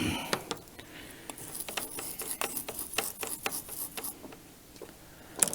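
Scattered light clicks and ticks with faint rubbing: small parts and tools being handled on a workbench.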